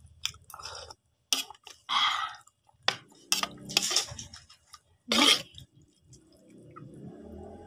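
A person eating hot noodle soup: several short slurps and sips between chewing, with a few clinks of a fork against the bowl.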